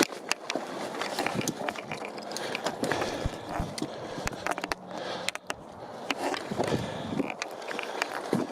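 Footsteps crunching and scuffing on a rocky trail while climbing, heard as many irregular sharp clicks and scrapes.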